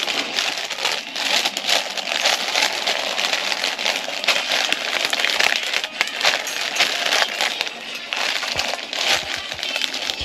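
Plastic packaging crinkling and rustling as it is handled, a steady crackle.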